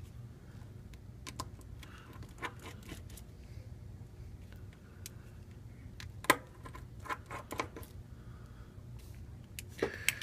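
Small clicks and taps of a screwdriver and tiny screws as the screws holding an LG Aristo phone's frame are taken out and set down on a magnet, with one sharper click about six seconds in. A steady low hum runs underneath.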